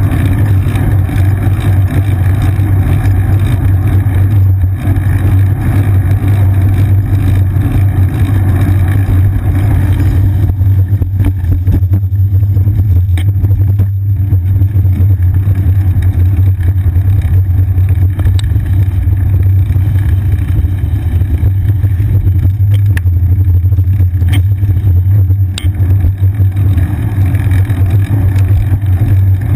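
Steady low rumble of a moving bicycle heard through a seat-mounted action camera in its housing: road vibration and wind on the camera. The higher hiss eases about ten seconds in, and a few faint ticks of rattling come through later.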